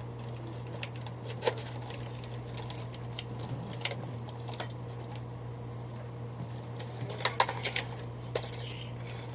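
Plastic clicks and knocks of a Zombie Strike toy blaster being handled as its stock is fitted on, a few sharper snaps among lighter rattles, over a steady low hum.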